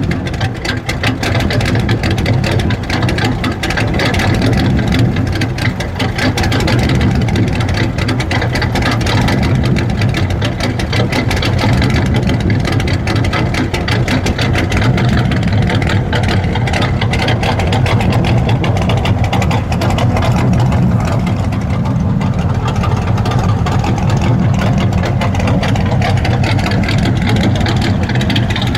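Muscle car V8 engine idling loudly and steadily through its exhaust, a rapid even beat of firing pulses, just after a startup.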